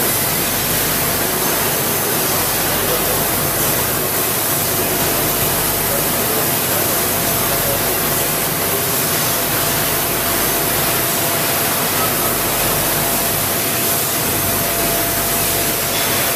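Laser cutting machine cutting steel plate into saw blade blanks: a steady hiss with a faint steady whine underneath.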